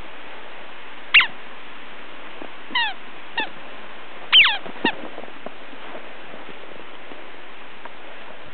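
Border collie puppy giving five short, high-pitched yips, each falling in pitch, spread over the first five seconds, over a steady hiss.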